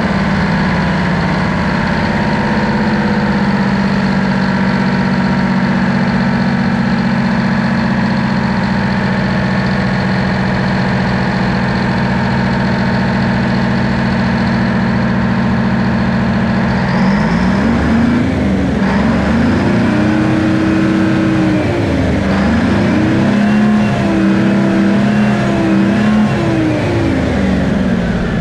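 Detroit Diesel 12V71TT, a twin-turbo two-stroke V12 diesel, idling steadily. About two-thirds of the way in it is revved up and down several times in quick succession, then drops back to idle near the end.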